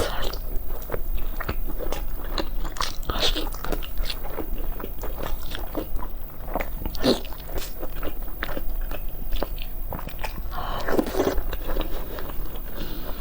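Close-miked eating: repeated crisp bites and crunches with chewing, coming irregularly several times a second.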